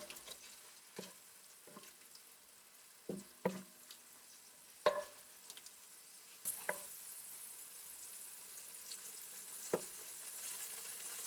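Diced chicken being stir-fried in soy sauce: a spatula knocks and scrapes against the pan every second or so, over a faint sizzle that grows a little louder from about halfway.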